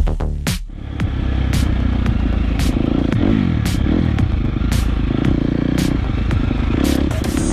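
Dirt bike engine heard from on the bike. It drops in pitch at the start, then runs steadily under way, its pitch rising and falling with the throttle. Irregular sharp clicks are scattered over it.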